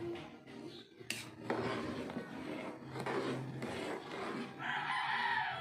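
A rooster crows near the end, one long call. Before it, a metal ladle stirs and scrapes through a pot of boiling soup.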